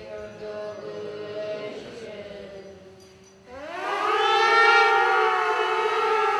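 Soft ritual chanting, then about halfway through a loud horn blast swoops up in pitch and settles into a steady, held note that carries on to the end.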